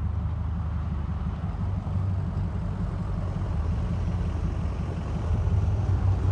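Ford 6.0 Powerstroke turbo-diesel V8 running steadily with a deep, low rumble, getting a little louder near the end.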